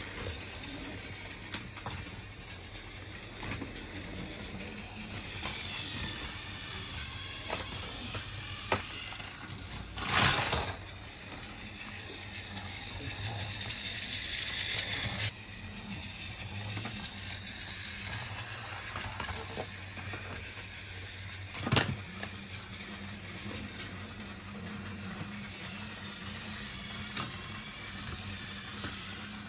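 Battery-powered toy Thomas train running, its small motor and gears whirring with scattered light clicks. Two brief louder knocks break in, about a third and about three-quarters of the way through.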